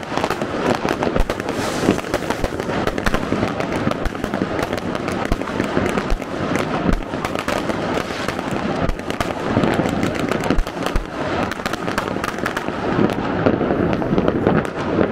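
Dense, continuous New Year's fireworks across a city: many rockets and firecrackers banging at once, near and far, in an unbroken crackling barrage with no pause.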